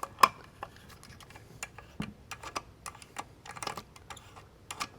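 Light, irregular clicks and ticks of a hand tool working the small retaining bolt of an exhaust canister's dB killer loose, the sharpest click just after the start.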